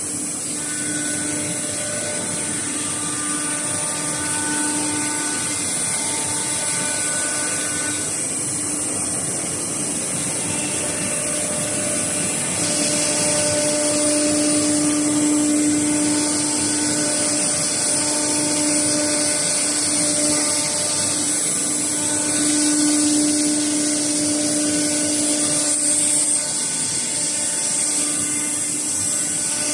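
CNC router machining MDF: a steady high-pitched spindle whine over a cutting hiss, with tones that come and go as the tool works. It gets louder about twelve seconds in and drops back a few seconds before the end.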